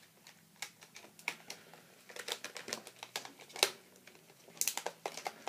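Irregular clicks and taps of a plastic action figure and its plastic packaging tray being handled, sparse at first and then busier from about two seconds in.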